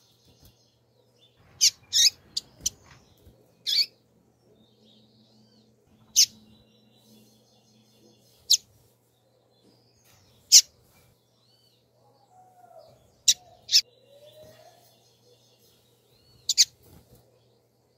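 Female double-collared seedeater (coleiro) calling: about a dozen short, sharp, high chirps at irregular gaps of one to three seconds, several in quick pairs.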